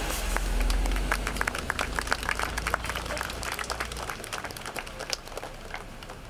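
An audience clapping: many scattered claps that thin out and die away near the end, over a low rumble that stops about four seconds in.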